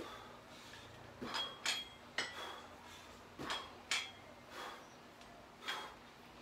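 Plate-loaded dumbbells clinking and knocking as they are lifted and lowered through a dumbbell exercise routine: short metallic clinks about once a second, each with a brief high ring.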